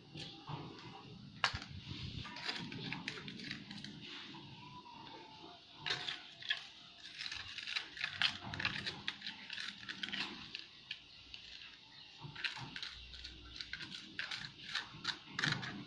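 A spoon scraping and tapping in a small plastic cup and at the mouth of a plastic bottle, with plastic crinkling: a run of irregular clicks and scrapes.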